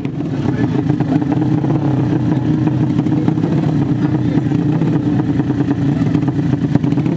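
150 cc drag-bike motorcycle engines idling steadily with an even, low engine note.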